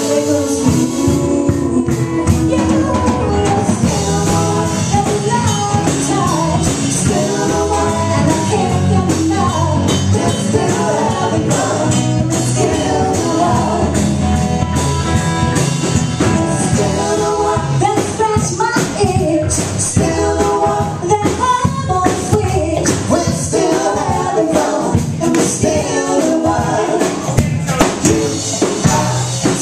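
Live band playing a song with electric and acoustic guitars, drums and singing, the beat marked by steady percussion.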